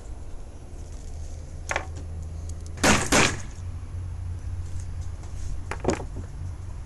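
A few short knocks over a low steady hum: a light one, then a loud quick double knock about three seconds in, and a softer double knock near the end.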